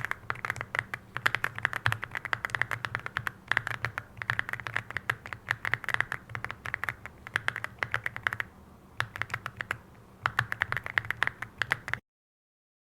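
Mechanical keyboard with Cupid switches being typed on in fast, continuous runs of keystroke clicks, with a brief pause about two-thirds through. The sound cuts off abruptly near the end.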